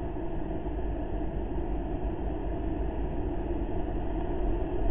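Steady low rumbling outdoor background noise with no distinct events, picked up by a rooftop webcam microphone.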